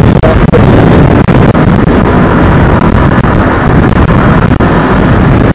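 Loud wind rumble on the microphone of a moving motorcycle, mixed with its engine and road noise, with a few brief dips in the first second or so.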